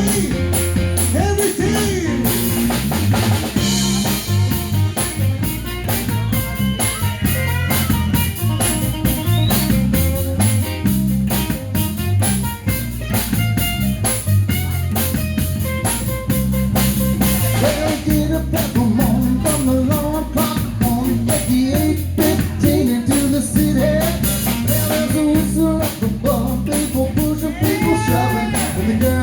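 Live band playing: a drum kit keeping a steady beat and guitar over a low bass line that steps from note to note.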